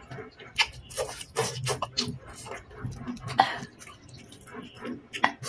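A person eating spicy instant noodles and rice vermicelli up close: wet slurping, chewing and mouth clicks in short, irregular bursts.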